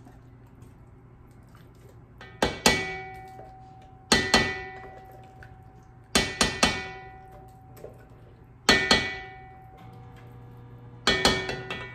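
Sharp metallic clanks with a brief ring, in five clusters of two or three knocks about every two seconds: a tin can of tomatoes being tapped and knocked with a spatula and against the rim of a cooking pot to empty it.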